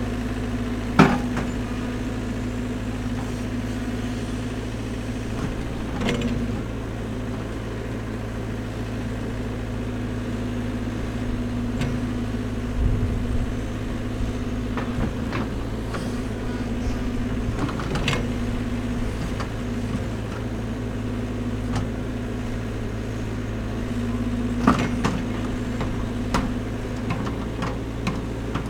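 Caterpillar backhoe loader's diesel engine running steadily as the backhoe digs and dumps soil, with a few sharp knocks from the bucket and boom, the loudest about a second in.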